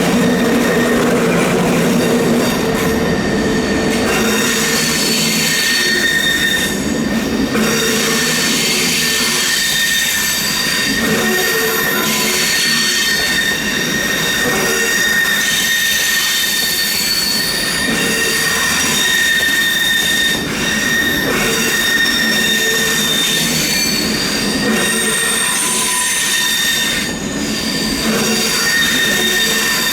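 Train wheel flanges squealing against the rails as the train takes a tight curve. Several high, piercing squeal tones waver and overlap continuously over the low running noise of the wheels.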